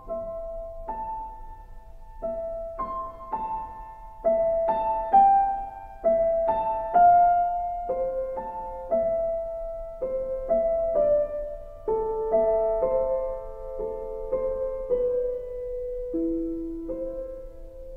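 Slow, sparse solo piano music: single struck notes, mostly one at a time, each left to ring and fade, with the melody settling lower near the end.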